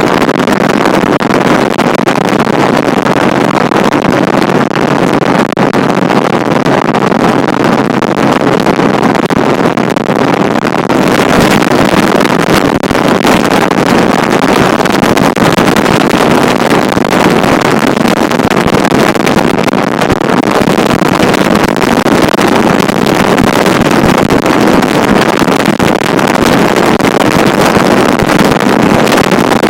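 Loud, steady wind noise on the microphone, a dense rushing hiss that gets a little brighter about eleven seconds in.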